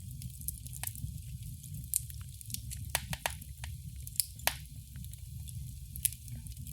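Wood fire in a fireplace crackling: irregular sharp pops and snaps over a low steady rumble, with a small burst of louder pops around three to four and a half seconds in.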